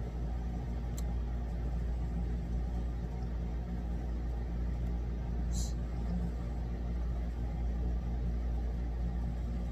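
Steady low background rumble, with a faint click about a second in and a brief hiss about halfway through.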